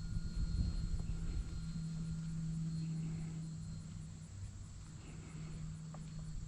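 Electric motor and propeller of an RC plane in flight, a steady buzzing hum that fades a little in the middle and comes back.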